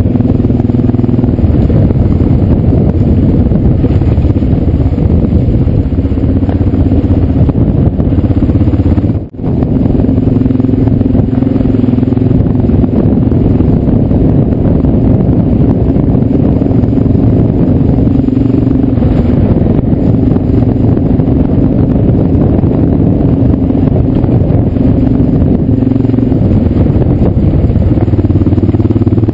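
Motorcycle engine running steadily under way, heard close from a camera mounted on the bike, with its note holding fairly even. The sound drops out sharply for a moment about nine seconds in.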